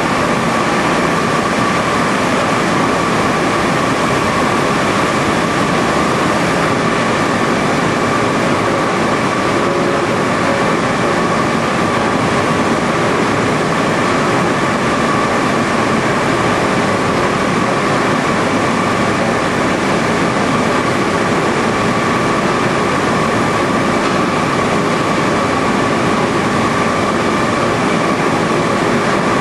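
Fruit-juice processing line running: the steady, unchanging noise of electric motors and pumps, with a constant high whine over it.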